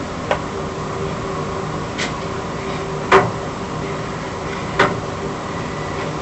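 Steady mechanical hum with a hiss, typical of a cruise ship cabin's ventilation and machinery, broken by four short sharp knocks or clicks, the loudest about three seconds in.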